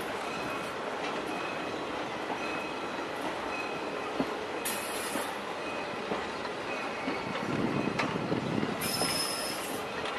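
Passenger coaches of a heritage train rolling past on steel rails, wheels rumbling and clicking, with a brief high-pitched wheel squeal about five seconds in and another near the end.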